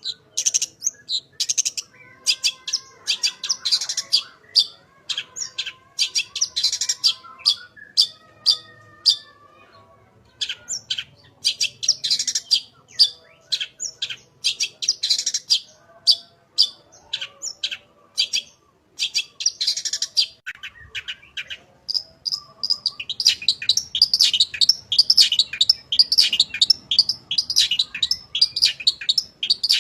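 Long-tailed shrike (cendet) in full song: rapid runs of sharp, high chirps and trills, varied and mimic-like, in bursts with short pauses, becoming a dense, unbroken chatter in the last third.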